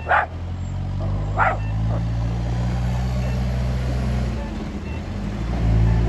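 Backhoe loader's diesel engine running steadily as it drives by, louder near the end. A dog barks twice, once near the start and again about a second and a half in.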